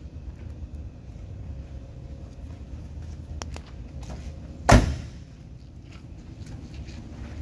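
Driver's door of a 1966 Chevrolet Chevelle 300 shut once with a solid thump about two-thirds of the way through, after a couple of light clicks.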